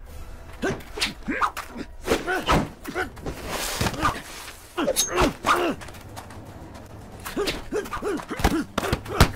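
Film hand-to-hand fight: a rapid run of blows landing as thumps and thuds, mixed with short grunts and shouts of effort and a scuffle in the dirt. The hardest hit lands near the end.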